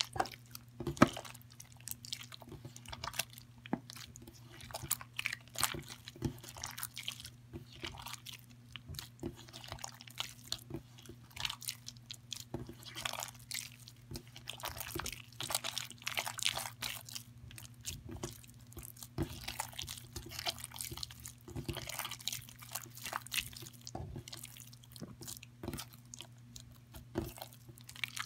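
Wet slime being squeezed and kneaded by hand, giving irregular sticky clicks and crackles.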